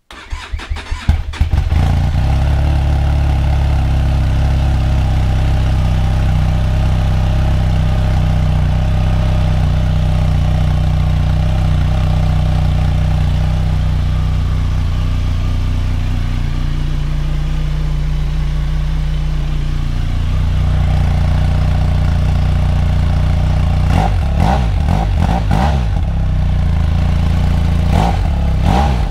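Benelli TRK 502 X motorcycle's parallel-twin engine on its stock exhaust cold-starting: it cranks and catches within about a second, then idles steadily. Near the end the throttle is blipped in a few short revs.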